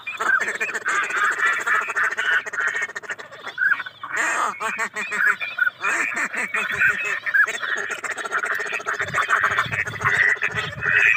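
Many ducks quacking and calling at once, short overlapping calls with no pause. A low rumble joins about nine seconds in.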